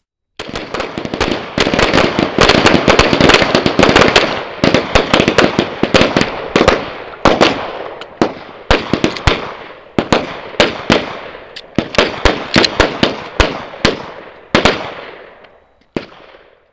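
Several pistols firing at once: a dense, overlapping string of rapid shots, each with a short echo, that thins to scattered single shots and stops near the end.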